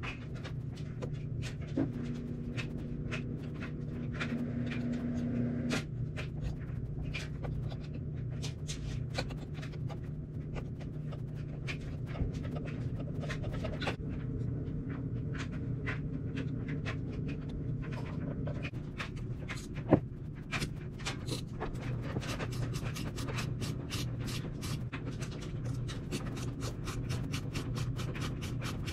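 Small clicks and scrapes of a screwdriver and hex driver working the shock-mount screws on an RC nitro buggy, the clicks coming quickly and densely in the last ten seconds, over a steady low hum.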